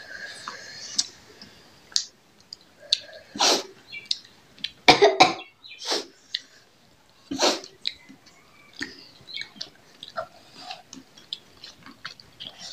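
Several loud coughs and throat clearings during a meal, four sharp ones in the middle of the stretch. Small wet clicks of eating rice with the hands and chewing run under and after them.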